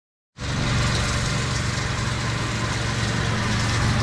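Tormach 1100MX CNC mill milling a half-inch 304 stainless steel plate with an end mill, a steady machine hum with a dense hiss of cutting above it, starting abruptly just after the start. The cut is deliberately run on a light feed to spare the cutter.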